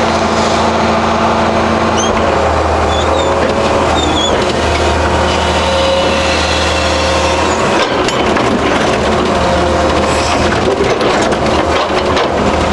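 John Deere 790D LC excavator's diesel engine and hydraulics running under load, heard from inside the cab. From about eight seconds in the engine note dips and the bucket scrapes and clatters through gravel and rock.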